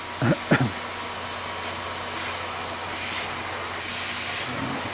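Vacuum cleaner running steadily as it is drawn over a horse's shedding coat, with two loud short sounds about half a second in.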